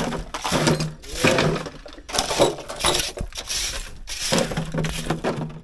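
Clattering and clinking of hard household objects being shifted and set down, an irregular run of knocks and scrapes.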